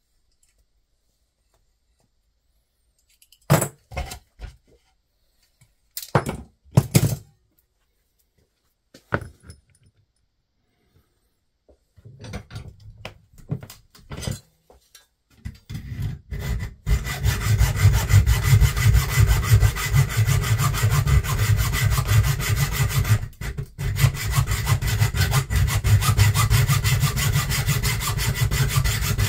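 A few separate clicks and knocks of small parts being handled, then, about halfway through, a saw starts cutting with a continuous, fast, rasping stroke that keeps going.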